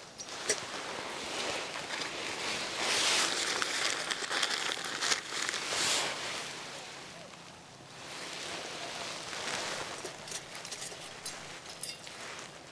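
Dry rustling and crinkling in two swells a few seconds long, with scattered sharp clicks.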